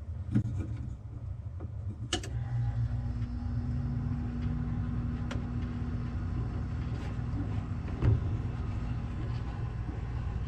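Absocold mini fridge's reciprocating compressor starting up and running with a steady low hum. A few light clicks and a louder knock about eight seconds in.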